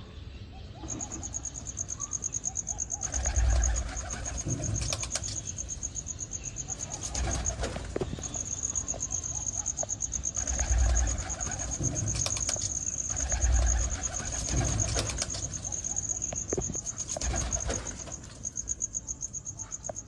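Domestic pigeons cooing in low repeated bouts every few seconds, over a steady high, rapidly pulsing cricket chirp that starts about a second in.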